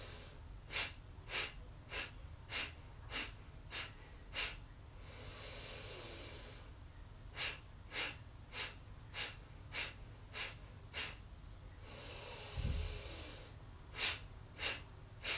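A woman breathing through her nose in a seven-count breathing exercise. She makes seven short, sharp exhales, a little under two a second, then a long audible inhale and seven more exhales. Another inhale follows, then the first exhales of a third round.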